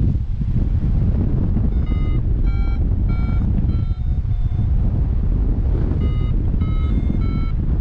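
Paragliding variometer beeping in short pitched tones about every two-thirds of a second, in two runs a couple of seconds apart, with a couple of lower beeps in the middle of the first run. The beeping signals that the glider is climbing in lift. Heavy wind rush on the microphone runs underneath and is the loudest sound.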